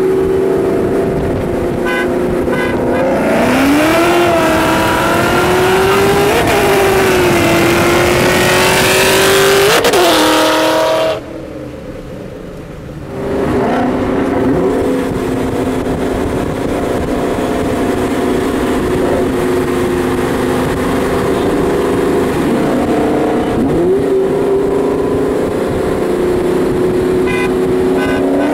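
Two Ford Mustang V8s running side by side: a supercharged Terminator SVT Cobra and a bolt-on 5.0 Coyote Mustang. The engine note climbs and falls through several pulls, and drops away briefly about 11 seconds in.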